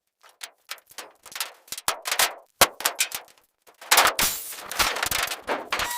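Rapid, irregular clicks and knocks of tools working on metal, with short gaps between them, growing denser and mixed with a hiss from about four seconds in.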